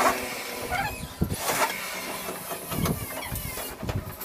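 Power drill run in several short bursts, about a second apart, while fastening a metal fascia cover.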